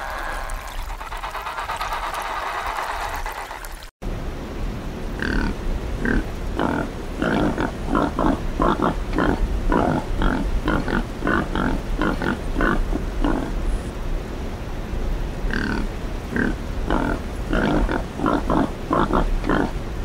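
Pigs grunting in quick runs, two or three grunts a second, with a pause of about two seconds partway through. Before them, a steady noisy sound fills the first four seconds and cuts off abruptly.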